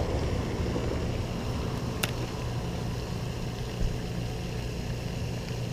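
Steady low hum of outdoor background noise, with one sharp click about two seconds in.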